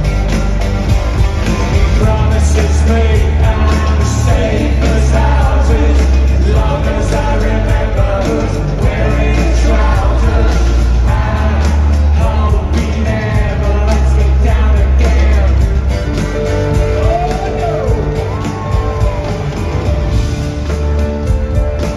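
A synth-rock band playing live and loud, heard from among the arena crowd: a lead singer over pounding bass and drums, with electric guitar and keyboards. Most of the singing comes in the first two-thirds, and a few gliding notes follow near the end.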